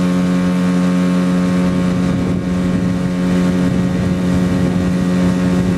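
Small outboard motor on an inflatable PVC boat running steadily under way: a loud, even drone that holds one pitch.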